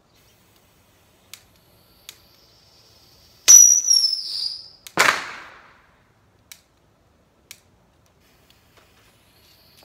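Bottle rocket launching from a homemade launcher: a faint fuse hiss, then about three and a half seconds in a sudden high whistle that falls slightly in pitch for about a second, followed by a sharp bang as the rocket bursts. A few faint clicks follow.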